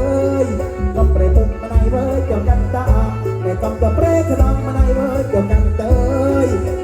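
Loud folk music played live, with a bending melody line over a heavy, steady bass beat.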